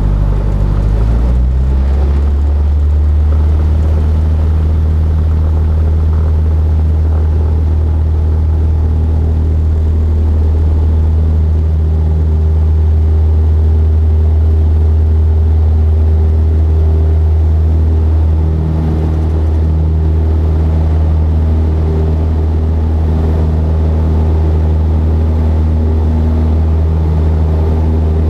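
Cessna 172's engine and propeller, heard from inside the cabin, going up to takeoff power about a second and a half in, then a steady, loud drone through the takeoff roll and climb-out.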